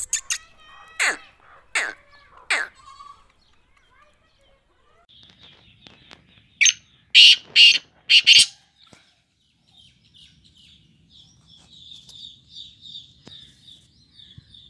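Black francolins calling: three harsh, falling notes in the first few seconds, then a loud burst of four grating notes about halfway through. A fast, high, pulsing chirring follows to the end.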